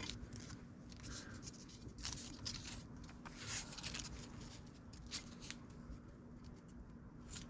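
Sheet of paper rustling and crinkling in short scrapes as it is handled and wrapped around an exhaust tube to mark a straight line, over a faint steady hum.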